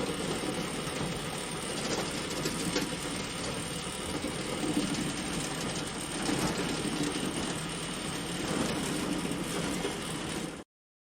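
Hay bale elevator running steadily, with a mechanical clatter and faint irregular clicks. It cuts off abruptly near the end.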